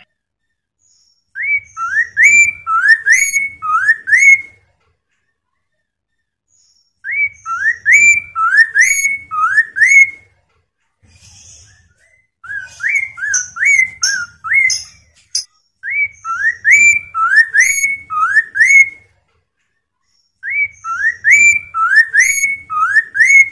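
Chestnut-capped laughingthrush (poksay mandarin) singing loudly. It gives five phrases of clear rising whistles, each phrase a quick run of five to seven upslurred notes lasting about three seconds, with short silences between.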